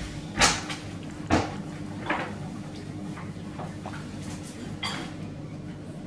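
A few sharp knocks and rattles of a hanging wire cage bird feeder as feral pigeons clamber on it and peck at the seed. The two loudest come about half a second and just over a second in, with lighter ones about two and nearly five seconds in.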